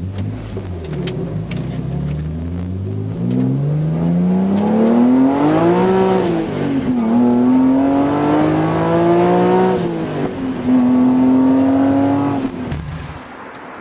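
BMW Z3 M Coupe's S54 inline-six accelerating hard through the gears: the revs climb for several seconds, drop at an upshift about halfway through, climb again, drop at a second upshift, then rise more gently before the throttle is lifted near the end.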